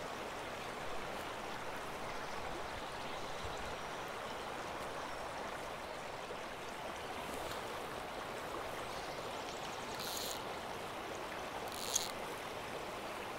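Small mountain stream flowing, a steady even rush of water, with two brief sharp sounds near the end.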